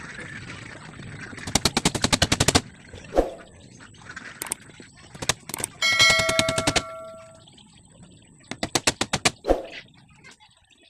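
Three quick bursts of rapid, sharp knocking from carpentry work on a plywood cage, with a few single knocks between them. The middle burst leaves a short metallic ring.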